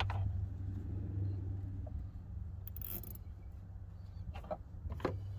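Hands working a wiring harness and zip tie near a car battery: a brief rasp about three seconds in and a couple of light knocks near the end, over a steady low hum.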